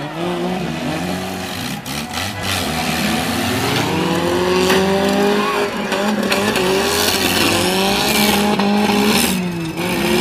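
Several compact demolition-derby cars' engines revving hard, their pitch rising and falling as they accelerate, with a few sharp hits of the cars ramming each other.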